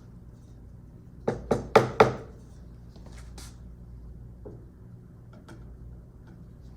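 A kitchen utensil rapped four times in quick succession against a container about a second in, then two lighter clicks: tomato paste being knocked off into the blender.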